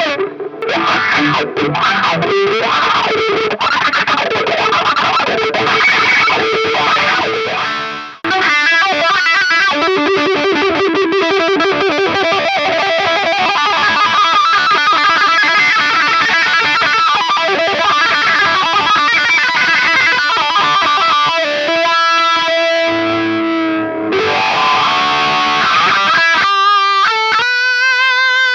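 Distorted electric guitar played through a Dunlop GCB95 Cry Baby wah pedal, its tone sweeping up and down as the pedal rocks. The playing breaks off briefly about eight seconds in.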